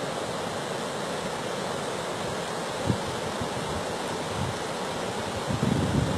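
Steady rush of muddy floodwater running across flooded fields. Gusts of wind buffet the microphone about three seconds in and again near the end.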